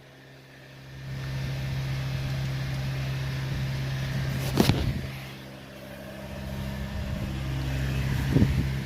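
Ford Mustang engine running steadily, swelling up in the first second and dipping briefly near the middle. Two short sharp sounds cut in, about four and a half and eight and a half seconds in.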